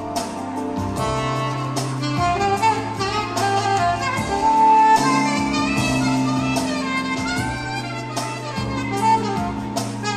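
Saxophone playing a jazzy melody with held notes over a backing track with a steady drum beat and bass line.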